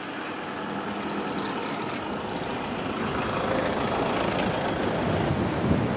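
A car driving slowly past at close range, engine and tyre noise growing louder as it approaches, then dropping off near the end.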